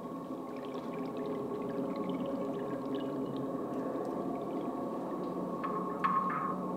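Recording made from the top of a tower of Lisbon's 25 de Abril suspension bridge: a steady drone of several held tones, with faint scattered clicks and chirps and a brief brighter hiss near the end.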